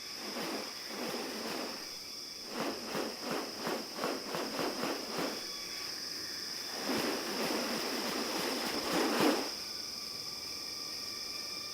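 Rainforest ambience with a steady high insect drone. Over it come a few soft noisy bursts, then a run of short pulses at about three or four a second, and a longer, louder rush of sound near the end.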